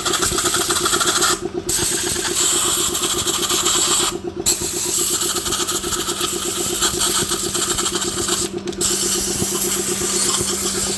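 Wheel loader's diesel engine running steadily with a fast, even pulse and a hiss over it, the sound dipping briefly three times.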